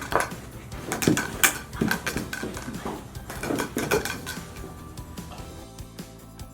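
Irregular knocks and clatter of small hard toy pieces being handled and struck, thinning out about four seconds in, with faint music underneath.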